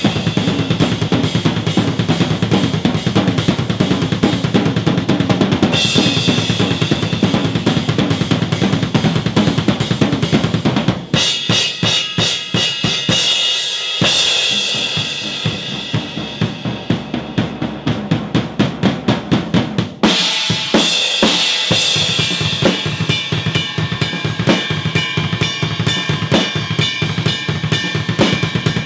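Prototype DDRUM acoustic drum kit played hard, captured raw with no close mics or mixing: rapid bass drum strokes under snare and cymbal crashes. About eleven seconds in, the pattern breaks into sparser, spaced hits with little low end. Around twenty seconds in, the full fast groove with cymbals comes back.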